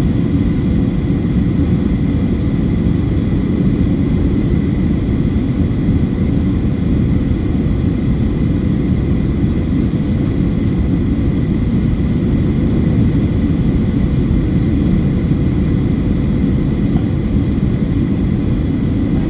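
Steady in-flight cabin noise of a Boeing 737-800: a dense, even rumble of its CFM56-7B engines and airflow, with faint steady tones above it.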